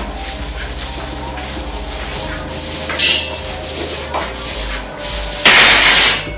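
Light steel link chain clinking and jingling as it is handled, then rattling loudly for about a second near the end as it is dropped onto a round steel grill grate.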